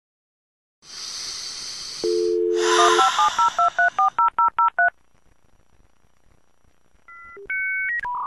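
Telephone line sounds: a burst of hiss, a steady two-tone dial tone, then a quick run of about ten touch-tone (DTMF) digit beeps. After a short quiet gap, a sequence of higher electronic tones begins near the end.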